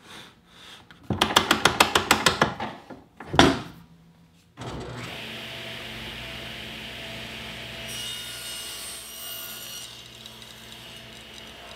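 A quick run of clicks and one sharp clunk as the table saw's rip fence is slid and locked. Then the table saw runs steadily, with a brighter hiss between about 8 and 10 seconds in as the blade rips half-inch Baltic birch plywood.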